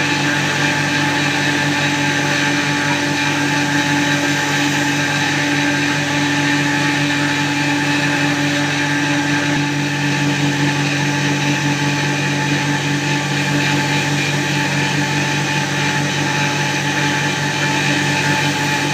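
An electric power tool's motor running steadily at constant speed, with a strong hum and a higher whine over a even rushing noise.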